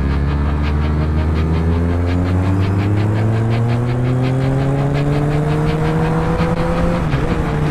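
Kawasaki Z1000's inline-four engine through an Arrow aftermarket exhaust, pulling steadily in one gear while riding. Its pitch climbs slowly for about seven seconds, then drops sharply near the end.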